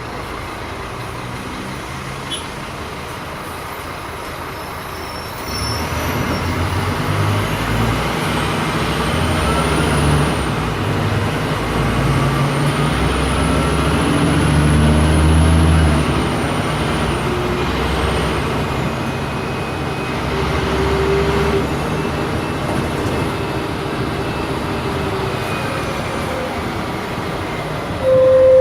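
Scania K310 city bus engine running steadily, then from about five seconds in pulling harder and accelerating, its pitch stepping up and down through the ZF automatic gearbox's shifts, with a thin high whine that rises and falls. It then eases to a steadier run.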